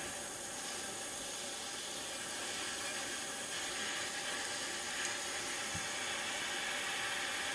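Small refillable gas pen torch hissing steadily, its flame heating a copper solder-ring elbow on the pipe joint. The hiss grows slightly brighter about halfway through.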